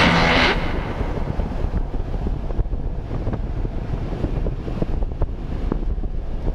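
Wind buffeting the microphone of a moving action camera, with a low steady rumble and a few faint ticks from riding over the road. The tail of background music ends about half a second in.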